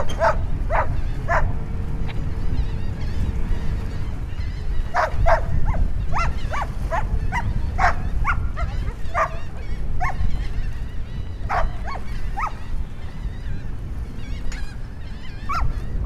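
Strong wind rumbling on the microphone, with clusters of short, repeated animal calls, the longest run several seconds in.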